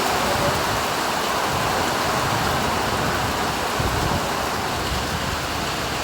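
Loud, steady rushing noise without any pitch, with an uneven low rumble underneath.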